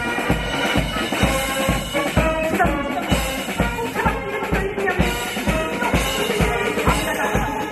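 Instrumental music with a steady drum beat, about two beats a second.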